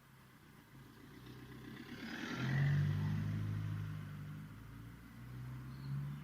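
A car driving past on a street: engine and tyre noise swell to a peak about two and a half seconds in and then fade, with another vehicle's engine growing louder near the end.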